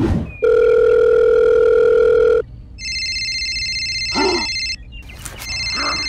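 Telephone sound effects. A short whoosh is followed by a steady dial tone of about two seconds, then a high trilling phone ring that breaks off and starts again near the end, with a brief voice-like squeak in the gap.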